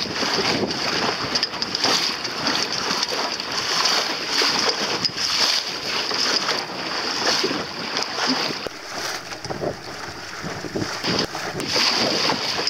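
Wind buffeting the microphone and sea water splashing and hissing along the hull of a small sailing boat under way, rising and falling in surges, easing a little in the second half.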